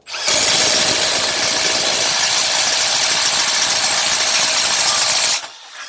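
Milwaukee brushless cordless impact driver running flat out under load, its hammer mechanism impacting in a dense rattling buzz, for about five seconds before it stops suddenly.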